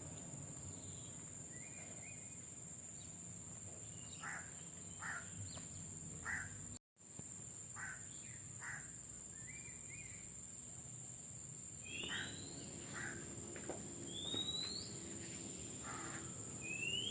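Outdoor ambience: a steady high insect drone under scattered short bird chirps, with several quick rising calls in the second half. It breaks off for a moment about seven seconds in.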